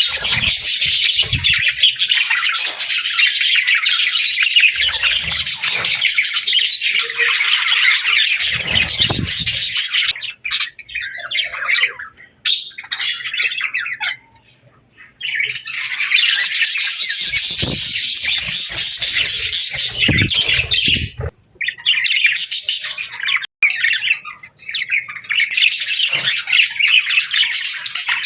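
A flock of small parrots chattering and squawking in a dense, continuous din of high calls. The chatter thins out about ten seconds in, nearly stops for a moment, then builds back to full.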